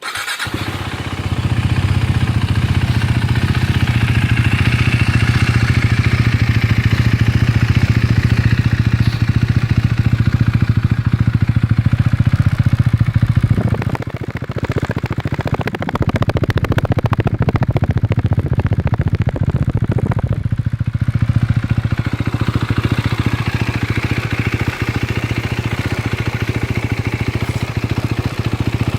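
KTM Duke 390's single-cylinder engine running through an aftermarket Akrapovic exhaust, coming in abruptly and then running at a steady low speed. About halfway through, for some six seconds, the exhaust note turns coarser and rougher before settling back.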